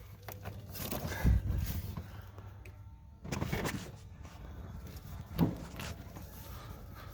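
Scattered handling sounds of hands working on engine wiring: rustles and a few sharp clicks as the ignition coil connectors are pushed and snapped into place.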